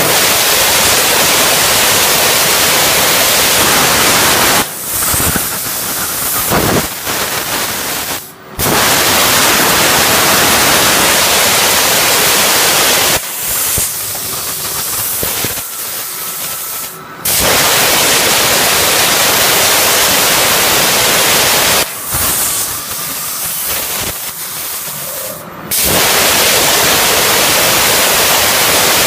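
CNC plasma torch cutting 12 mm steel plate: a loud, steady hiss that runs for about four to five seconds at a time, dropping three times to quieter stretches of a few seconds before starting again abruptly.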